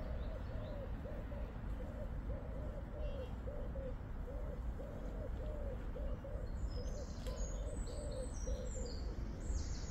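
A pigeon cooing: a long, steady run of short, evenly spaced coos. Small birds chirp high up from the second half on.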